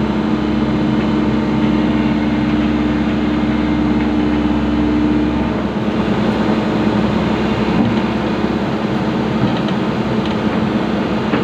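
Excavator's diesel engine running steadily under hydraulic work, its note changing a little over halfway through as the load shifts.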